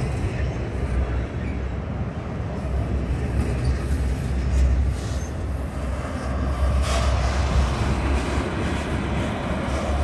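Loaded autorack freight cars rolling past at close range: a steady low rumble of steel wheels on rail as the train picks up speed.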